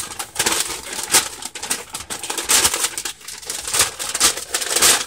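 Large fold-out paper instruction sheet being unfolded and shaken out by hand: irregular paper rustling and crackling, with several sharp crinkles.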